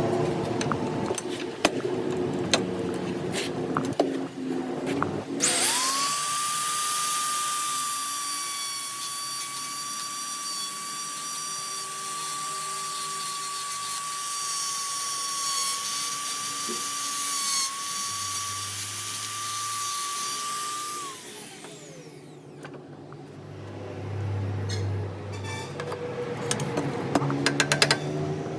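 A small high-speed electric motor, as in a power tool, spins up about five seconds in and runs with a steady high whine for about fifteen seconds, then winds down. Scattered clicks and knocks come before and after.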